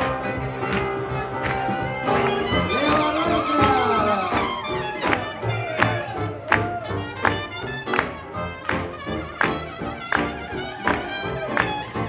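Live swing jazz band playing an up-tempo tune, led by trumpet and other brass over a steady, evenly spaced beat. A horn bends its notes about three seconds in.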